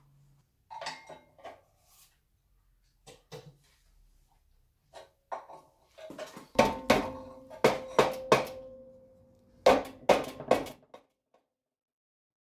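Classic Mini rear brake drum being knocked with a metal bar to work it off, giving about eight sharp metallic knocks in two clusters. Each knock leaves the drum ringing with a clear tone. A few lighter clicks of the tool come before them.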